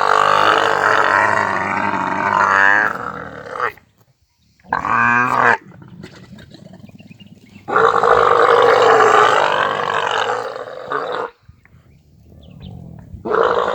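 A large animal calling loudly in long, drawn-out, wavering roars. There are four calls: a long one at the start, a short one about five seconds in, another long one about eight seconds in, and a fourth beginning near the end.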